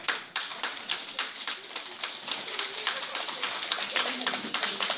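An audience of children applauding, many hands clapping at once in a dense, irregular run.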